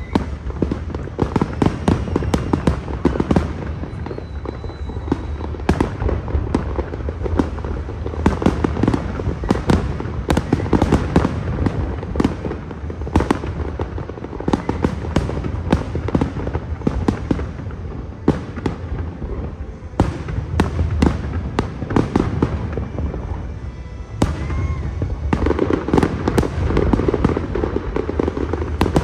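Aerial firework shells bursting in rapid succession, with many overlapping bangs and crackles and no break between them.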